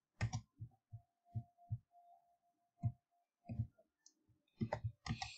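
Computer mouse clicks, about a dozen short sharp clicks at irregular intervals, bunched together near the end. A faint steady tone sounds for about two seconds in the middle.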